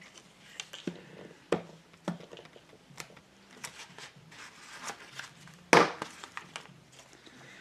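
Paper being handled: scattered rustles and light taps of paper scraps, with one louder, sharp paper crackle about six seconds in.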